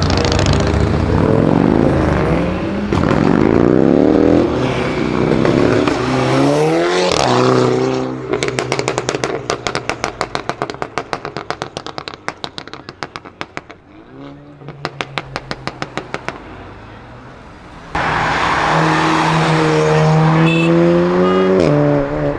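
A VW Golf 6 GTI's turbocharged four-cylinder accelerates hard away, its engine note climbing again and again through the gears. As it fades, there is a long fast string of sharp pops. About eighteen seconds in, a VW Golf 7 R starts accelerating loudly with a rising engine note.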